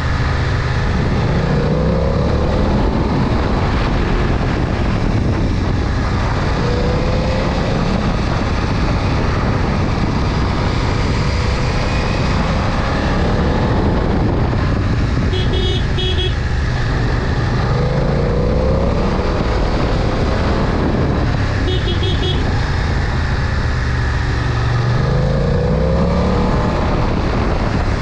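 BMW F900XR's parallel-twin engine running under load, its pitch rising in about five separate runs of acceleration over a steady rush of road and wind noise.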